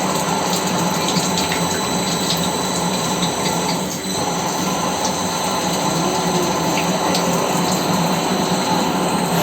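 CNC machine running steadily: a continuous hiss over a steady low hum, dipping briefly about four seconds in.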